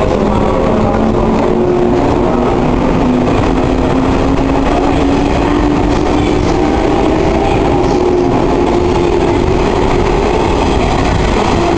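Electric commuter train pulling out of the station and gathering speed past the platform: a steady rumble of the running train with a motor whine that slowly rises in pitch as it accelerates.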